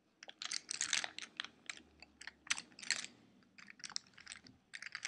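Makeup brushes and small plastic makeup cases being rummaged through and handled: quick, irregular clicks and rattles, thinning out for a moment a little past halfway, then busy again near the end.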